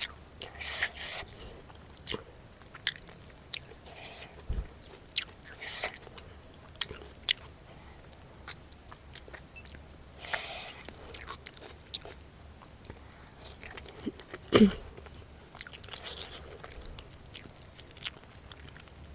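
Close-miked chewing and biting of a fish curry and rice meal, with wet mouth clicks and some crisp crunchy bites. One louder sound with a falling pitch comes about two-thirds of the way through.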